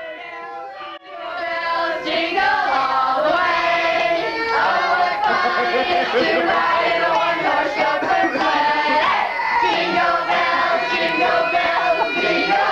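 A group of children and adults singing together loudly in chorus, the many voices coming in strongly about a second in.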